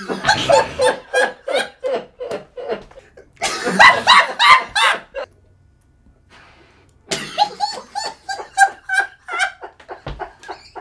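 A man laughing hard in long fits of rapid ha-ha pulses, with a break of about two seconds midway.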